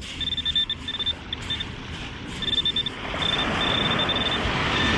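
Metal detector sounding its high target tone in short repeated beeps, with longer held tones later on, signalling buried metal that turns out to be a penny. A rushing noise builds underneath from about three seconds in.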